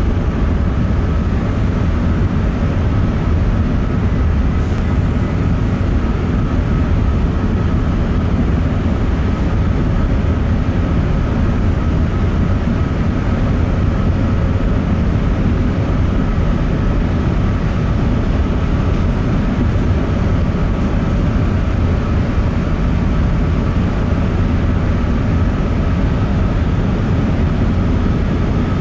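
Steady low rumble of a large car ferry's engines and machinery heard from on board, with a faint steady hum on top and no change in pace.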